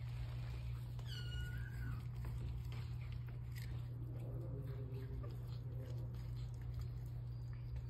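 Domestic cats feeding together from a bowl of meat. A steady low rumble runs throughout, and one short mew comes about a second in.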